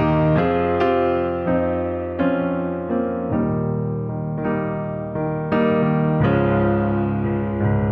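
Background music: a gentle solo piano piece, notes and chords struck and left to ring out.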